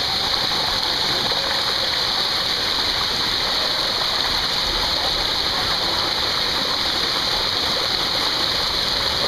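Water rushing down the inside of an enclosed water-slide tube, a steady, loud rush of flowing water heard from a rider sliding through it.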